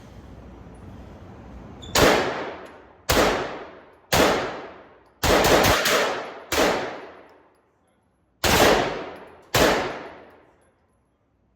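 Masterpiece Arms Defender 9mm pistol (MAC-11 type) firing: single shots about a second apart and, around the middle, a quick bump-fired burst of about four rounds. Each shot is followed by a long fading echo.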